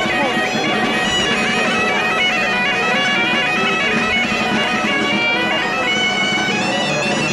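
Asturian bagpipe (gaita) playing a stepping melody over its steady drone.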